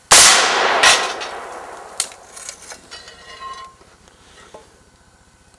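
A 5.56×45 M855 rifle shot striking a steel body-armour plate: a sudden loud crack that rings away over about a second, with a second sharp crack just under a second later. Lighter clicks and rustles of handling follow.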